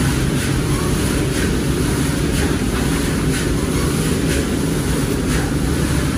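A steady low rumble, with roasted black chickpeas rattling against the wire mesh of a wooden sieve tray as it is shaken, a soft rattle about once a second.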